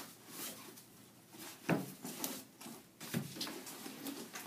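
Books and belongings being taken out of a backpack by hand: rustling, with two soft knocks about a second and a half apart.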